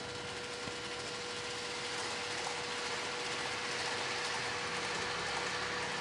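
Running noise of an N-gauge Odakyu Romancecar model train: a steady hiss that slowly grows louder, with a faint steady tone under it.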